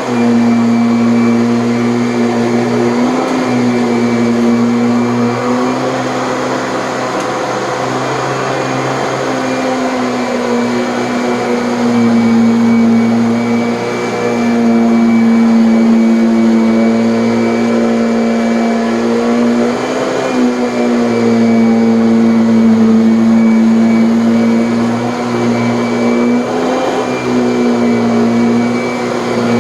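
Kirby Avalier upright vacuum running steadily, its stiff oblique brush roll agitating a firm mattress top with the Tech Drive self-propel on. The motor's pitch dips briefly every few seconds as the load on it shifts.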